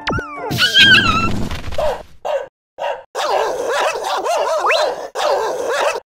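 Dog barking and yelping loudly: a burst of yelps about a second in, then from about three seconds in many barks and yelps piled on one another in a continuous racket.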